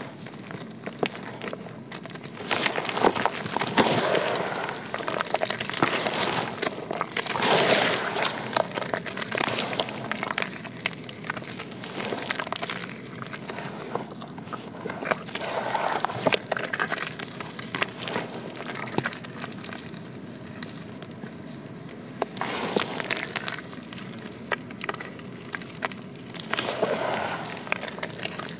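Hands crumbling and squeezing lumps of dry white dirt in a basin of water: a dense run of fine crackling as the dry lumps break up and soak, turning to wet squishing as they become paste, with louder swells every few seconds as a handful is squeezed.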